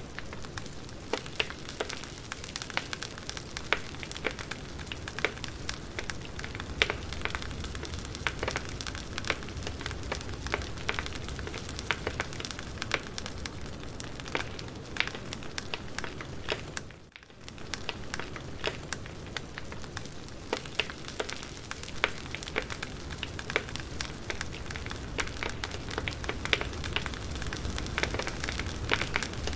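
Campfire burning, with a steady hiss and frequent sharp crackles and pops of burning wood. The sound briefly drops out a little past halfway.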